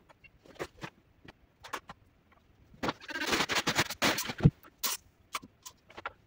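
Fabric rustling and light knocks from clothes and a blanket being handled and laid down, with a longer rustle from about three seconds in that ends in a soft thump.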